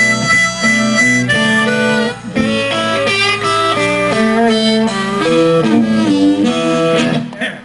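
Blues harmonica, played into a handheld microphone, and electric guitar playing together live in a 1-4-5 blues, the harmonica holding long notes over the guitar. The playing falls away near the end.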